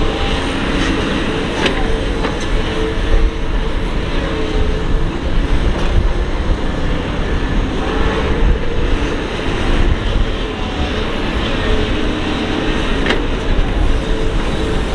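Doosan DX225LC excavator's diesel engine running steadily as the machine swings and digs, with a faint wavering whine and a few sharp clanks.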